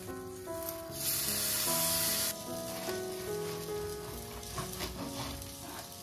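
Rolled wraps sizzling on a hot, oiled cast-iron grill pan: a loud hiss starts about a second in and stops sharply about a second later. Soft background music plays throughout, and a few light taps come near the end.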